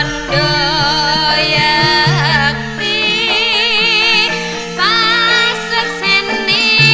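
Campursari music: a lead melody with strong vibrato over a steady backing, the lead breaking off briefly about two and a half seconds in and again just before five seconds.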